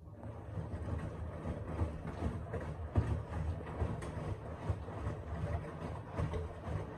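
Washing machine running: a low motor hum and rumble from the turning drum, with irregular knocks, rising over about the first second and then steady.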